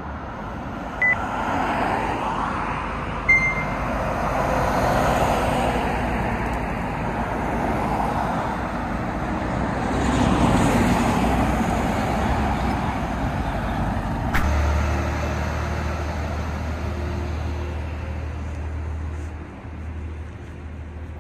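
Road traffic noise: a continuous rush of cars and vehicles moving along the road, with a steady low hum in the second half and a few short clicks.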